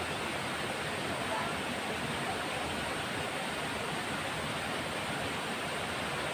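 Steady rush of a forest river's water running over rocks.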